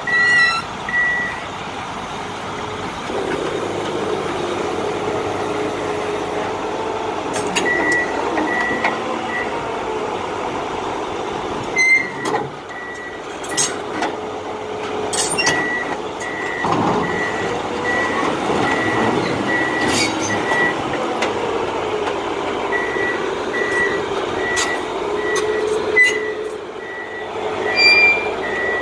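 Drilling machine's engine running and changing pitch as it moves under power, with its reversing alarm beeping about twice a second in several spells. A few sharp metal knocks break in along the way.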